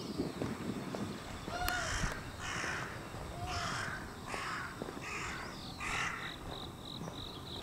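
A crow cawing repeatedly: about six hoarse caws, each under a second apart, with a couple of short higher calls among them. Near the end a quick run of high, even ticks follows.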